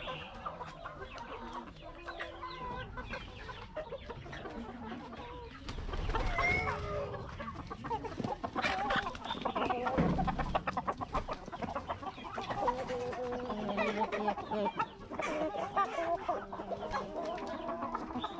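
A large flock of chickens clucking and calling over one another, a dense continuous chorus that grows busier and louder about six seconds in.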